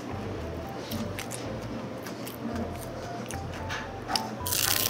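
Crisp flaky egg tart pastry crackling as it is bitten and chewed, in scattered crunches with a louder burst of crunching near the end, over soft background music.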